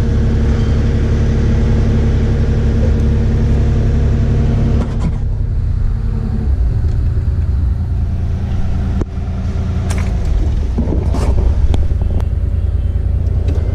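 Kubota KX040-4 excavator's four-cylinder diesel engine running steadily, with a pitched part of the engine note dropping away about six and a half seconds in. A few short knocks sound over it, around the middle and near the end.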